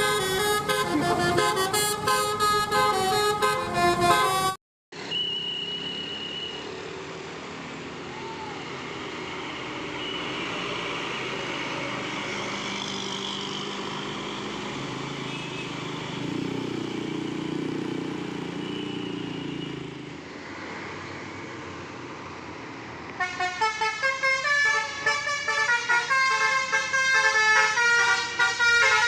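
A bus's multi-tone telolet basuri horn plays a rapid melody for the last several seconds. Before that there is a long stretch of steady vehicle and road noise. At the very start, a few seconds of music stop abruptly.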